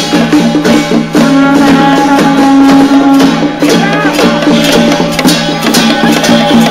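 Taiwanese lion-dance troupe percussion: drums, gongs and cymbals struck in a fast, even beat of several strikes a second, over sustained ringing pitched tones.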